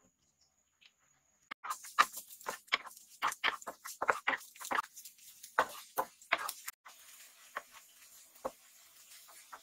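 A wooden spatula knocking and scraping against a nonstick frying pan as minced garlic is stirred, in quick irregular clicks. After about seven seconds a faint steady sizzle of the garlic frying in oil comes in under fewer, lighter knocks.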